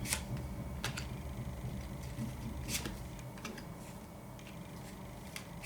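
A few light clicks and taps of tarot cards being handled on a table, over a low steady hum.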